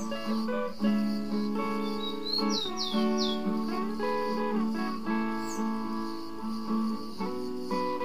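Solo acoustic guitar (violão) played fingerstyle, a slow picked melody. A few bird chirps are mixed in: four quick falling chirps about two and a half seconds in, and one more a little later.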